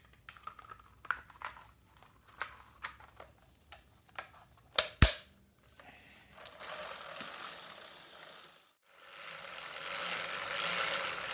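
Bicycle chain being cranked through a clip-on chain cleaner filled with tap water to rinse it. A ticking ratchet of clicks comes first, with one sharp click about five seconds in, then a steady swishing rush from the chain running through the water-filled cleaner.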